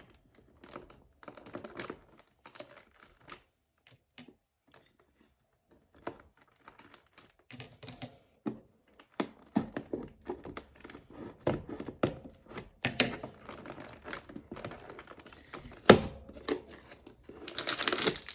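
Cardboard advent calendar door being picked and torn open: scattered scratching, clicking and small tearing sounds, with one sharp knock about three-quarters of the way in. Near the end comes steady crinkling of packaging as the toy is pulled out.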